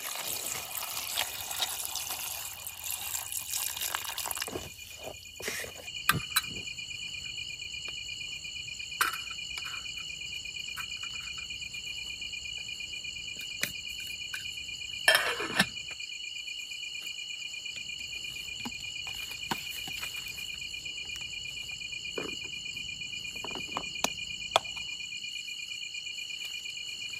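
Crickets chirping steadily in a continuous high trill. For the first four seconds or so there is a rush of noise, and scattered sharp clicks and knocks come through the trill, the loudest about halfway through.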